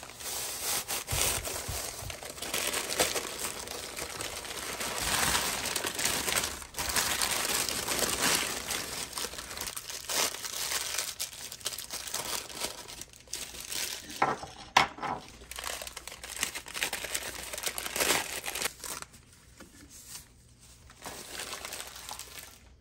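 Brown kraft paper wrapping crinkling, crumpling and tearing as parts are unwrapped by hand, with a few sharper clicks; it dies down near the end.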